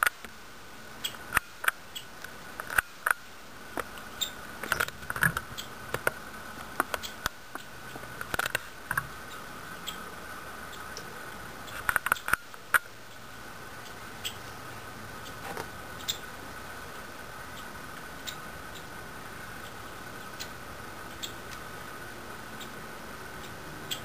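Fledgling Nuttall's woodpeckers giving short, sharp squeaks, many in quick succession for the first half, then fewer and more spaced out.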